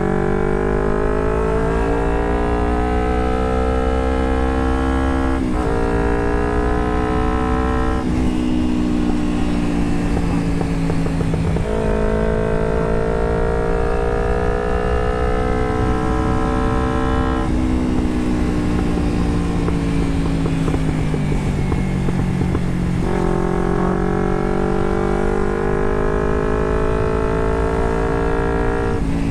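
Carbureted Kawasaki Ninja 250R's parallel-twin engine through a Termignoni exhaust, heard from the rider's seat. The revs climb through two upshifts in the first eight seconds, sink as the throttle is rolled off, climb again about twelve seconds in, sink again from about seventeen seconds, and climb once more near the end.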